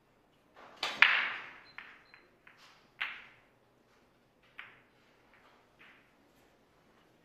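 Heyball (Chinese eight-ball) break shot: the cue hits the cue ball, which smashes into the racked balls with a loud crack about a second in. A string of separate clacks follows as the spreading balls hit each other and the cushions, the loudest about three seconds in, thinning out towards the end.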